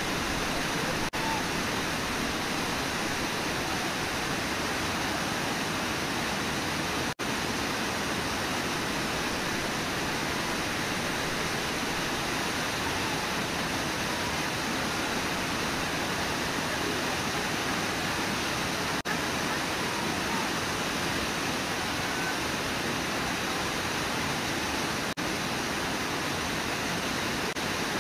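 Steady rushing of Brooks Falls and the river pouring over the waterfall's lip, with a few momentary dropouts.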